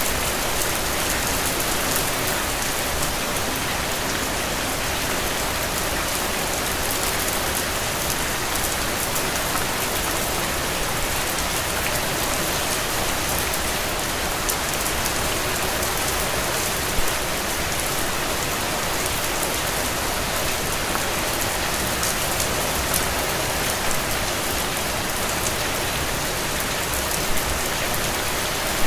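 Steady rain on a window: an even hiss of rainfall with individual drops ticking on the glass, and a few slightly louder drops about halfway through and near the end.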